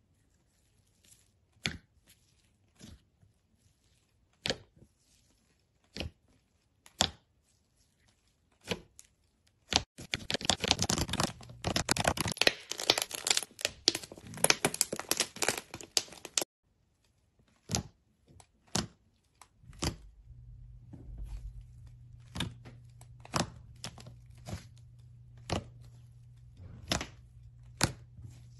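Fingers poking and squishing a tub of stiff whipped foam, making sharp, crisp pops about once a second. A dense run of crackling and tearing lasts several seconds in the middle. A low steady hum comes in during the last third.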